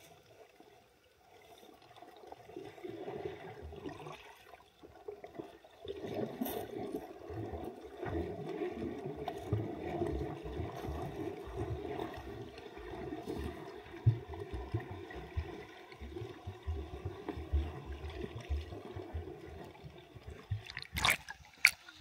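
Stream water heard with the microphone underwater: a muffled gurgling rush with irregular low knocks, growing louder after about six seconds. Near the end come a couple of sharp clicks.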